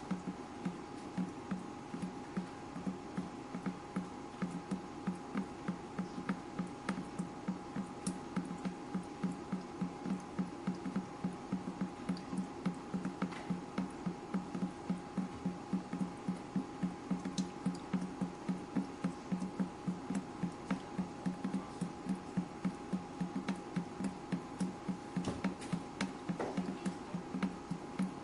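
Water dripping steadily in a regular rhythm of about three drops a second, with a faint steady hum underneath.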